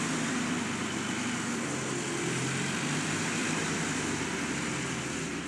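Heavy machine's diesel engine running steadily, a constant hiss over low engine tones that shift slightly in pitch as the load changes.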